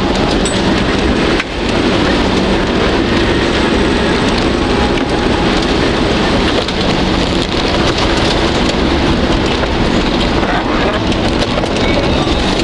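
Off-road 4x4 driving hard along a wet, muddy dirt track, heard from inside the cab. A steady engine drone sits under a loud hiss of wet tyres and water and mud spraying against the body, and the noise dips briefly about a second and a half in.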